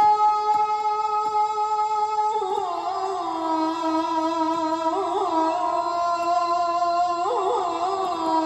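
A man's voice chanting the sela, the Islamic salutation to the Prophet, amplified through a stage sound system: one long held note, then a step down to a lower note about two and a half seconds in, with melismatic turns near five and seven seconds.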